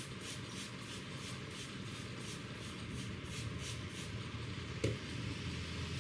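Hands rubbing over the scalp and hair during a head massage, a rhythmic swishing of about three strokes a second, with one sharp click about five seconds in. A steady low rumble runs underneath.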